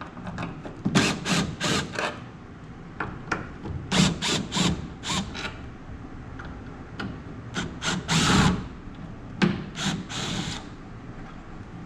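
Power driver backing out screws in a series of short bursts, in clusters of spurts with brief pauses between them.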